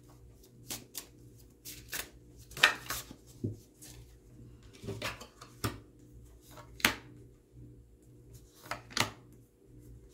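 Tarot cards being shuffled by hand: irregular soft slaps and riffles of the cards, a stroke or two each second, with a short lull in the second half.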